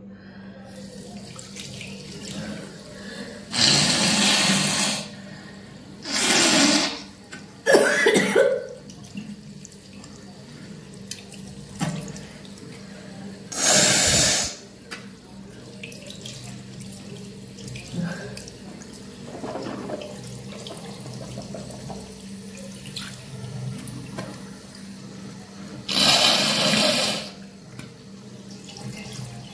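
A person with a cold clearing mucus over a sink: five loud, forceful blasts of nose blowing and spitting, each about a second long, over the steady sound of a running tap.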